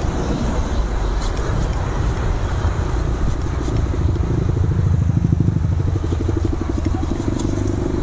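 Hand saw cutting through a tamarind branch in back-and-forth strokes, over steady road traffic that swells as a vehicle passes about five seconds in.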